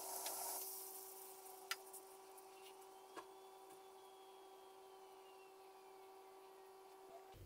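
Near silence: faint steady room hum with two soft clicks. At the very start a faint hiss of the foamy liquid simmering in the stainless steel pan fades out.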